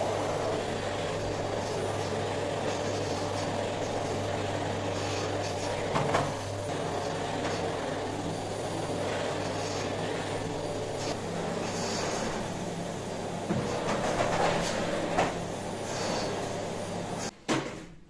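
Canister vacuum cleaner running steadily as its floor nozzle is pushed over a laminate floor, with a few light knocks of the nozzle. The noise stops abruptly near the end.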